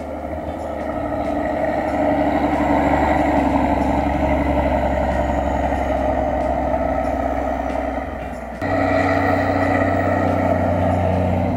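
Claas Xerion 5000 tractor's engine running under load as it pushes and packs chopped corn silage with its front blade: a steady drone that grows louder about two seconds in, dips briefly, then changes abruptly about eight and a half seconds in.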